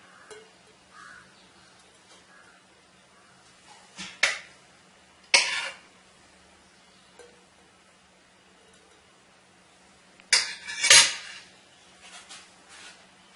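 A few short, sharp clatters of cookware and utensils against a pan and stovetop: a pair about four seconds in, one more a second later, and two close together near the end, the last the loudest. A faint steady hum runs underneath.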